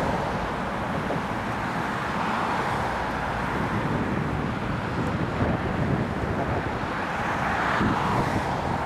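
Motorboat running at speed across open water: a steady engine drone mixed with the rush of its wake.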